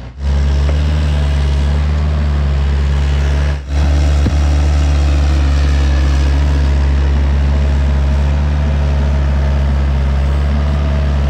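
Kubota mini excavator's diesel engine running steadily and loud as the machine backfills a cable trench. The sound drops out briefly about three and a half seconds in.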